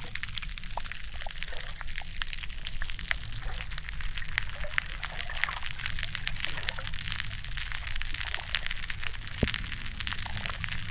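Underwater hydrophone recording of a dense, continuous crackle of many small clicks over a low steady rumble. The recordists think it is the pumping of shell-dwelling mollusks filtering food at a favourable tide, though they admit no one really knows.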